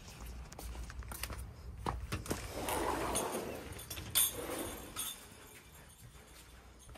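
Footsteps and handling noise while walking in from a tiled patio, with scattered light clicks. A rushing swell comes about three seconds in, and a sharp knock with a shorter rush just after four seconds.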